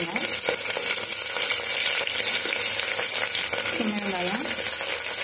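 Chopped onions, curry leaves and a green chilli sizzling in hot oil in a stainless steel pressure cooker: a steady frying hiss with a few light clicks as more pieces drop into the oil.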